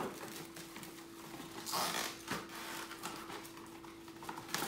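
Plastic cling wrap crinkling as a sheet is pulled off its roll and handled, with a louder rasp about two seconds in.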